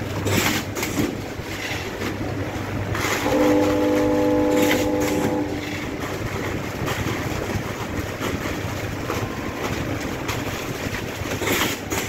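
Vertical form-fill-seal chips packaging machine running, a steady mechanical noise with a low hum and irregular clicks and knocks as the bags are sealed and dropped. For about two seconds near the middle, a steady horn-like tone sounds over it.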